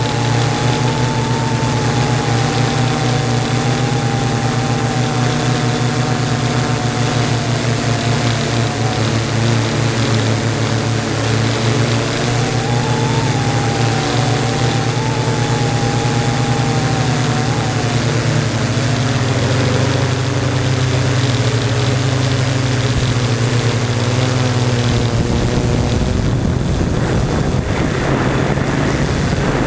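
Yuneec Typhoon G drone's electric motors and propellers humming steadily in flight, heard close up through its onboard camera, with a higher whine that wavers up and down in pitch as the motor speeds change. Near the end rough wind buffeting joins the hum.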